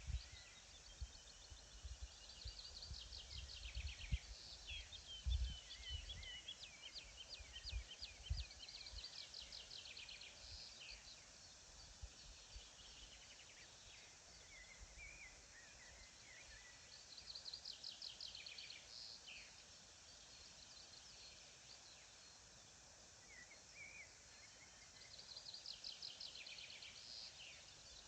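Songbirds singing in a faint outdoor soundscape: fast trilled phrases of rapidly repeated high notes come in bouts every several seconds, several birds overlapping. Low rumbles and thumps sound in the first eight seconds.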